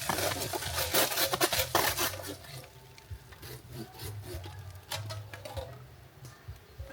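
Rough scraping and rasping, loudest over the first two and a half seconds, then fainter scattered scrapes and knocks.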